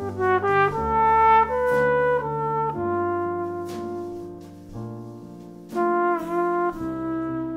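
Jazz trumpet playing a melody of held notes over piano chords, with occasional drum strokes. The band is softer about halfway through, and a trumpet note bends near the end.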